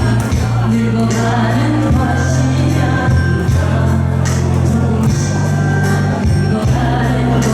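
Korean trot song played over a backing track, with a singer's voice and a steady bass line.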